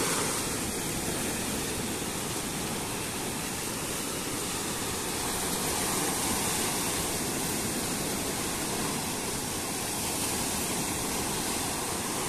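Small waves breaking and washing over the shallows onto the sand: a steady rushing noise that swells only slightly.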